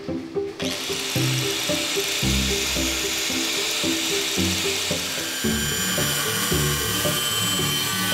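Background music with a steady beat over metalworking noise: a harsh, hissing power-tool sound that starts suddenly about half a second in and runs on, with a faint high whine near the end.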